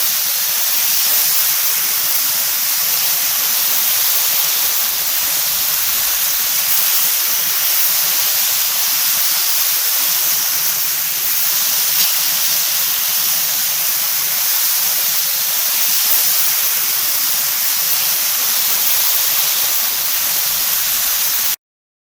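Meat frying, a steady dense sizzle with fine crackle. It cuts off suddenly near the end.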